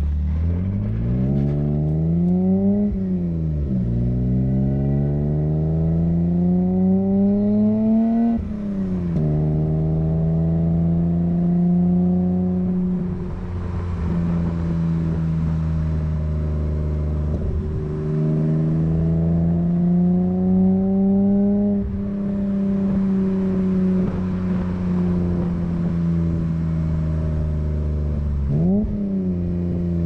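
A BMW E30 320i's 2.0-litre M20 straight-six running through a Scorpion half exhaust, picked up at the rear bumper, accelerating through the gears. The revs climb and drop sharply at upshifts about three and eight seconds in. Then it cruises, climbs again and eases off, with a short rise and fall in revs near the end.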